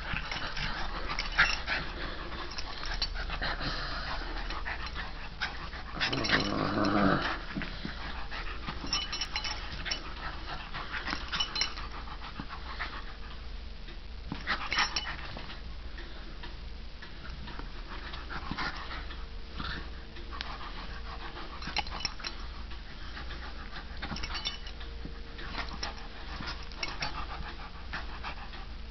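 Scottish terrier panting and growling while tugging at a toy in play, with a louder growl lasting about a second some six seconds in.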